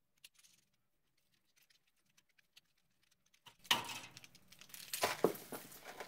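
A copper filter drier being cut open with a tubing cutter: after a few near-silent seconds, a sudden metallic clinking and rattling that goes on in spurts.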